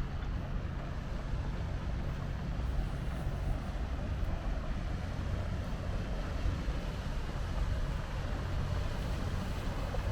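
Steady low rumble of waterfront ambience, with no distinct events.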